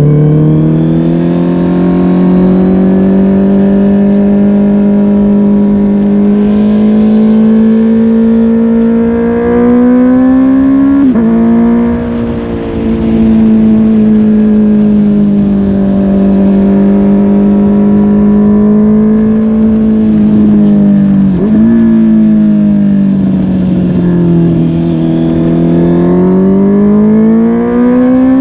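Honda CB650R inline-four engine through a MIVV GP PRO Carbon aftermarket exhaust, ridden at a steady pull. The revs climb and fall slowly, with quick gear changes about 11 and 21 seconds in.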